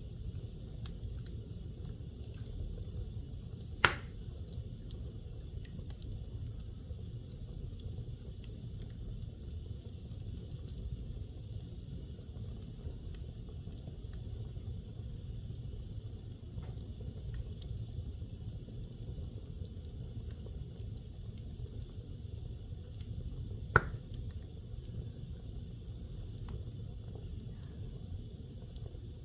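Wood fire burning in a fireplace: a steady low rumble with faint crackling and hissing, and two sharp pops, one a few seconds in and another about three-quarters of the way through.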